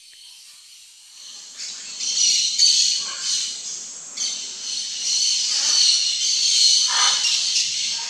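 Tropical rainforest ambience: a dense, steady, high-pitched insect chorus that fades in over the first two seconds, with a few short bird calls about three, five and a half and seven seconds in.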